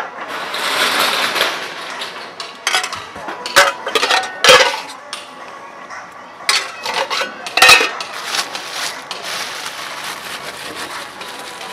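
Steel spoon stirring and scraping in a stainless steel pot as jhalmuri is mixed, with repeated sharp metallic clinks against the pot. A noisy hiss fills the first two seconds.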